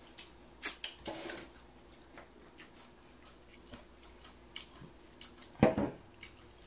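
Hot sauce bottle being shaken and handled over a plate of nachos: scattered small clicks and short rustles. A louder knock comes near the end as the bottle is set down on the table.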